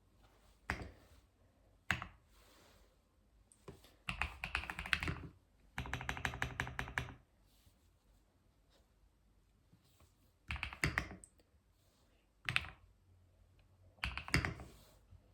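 Typing on a computer keyboard in bursts: single keystrokes, then quick runs of key clicks separated by short pauses.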